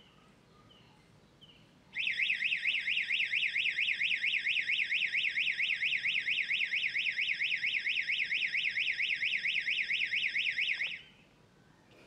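Mains-powered (230 V) electronic siren horn, triggered by a PIR motion sensor detecting someone approaching. It sounds a loud, fast up-and-down warble of about five sweeps a second, starting about two seconds in and cutting off about nine seconds later.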